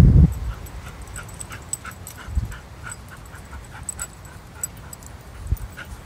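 Airedale terrier whimpering in a run of short, high whines, about two or three a second.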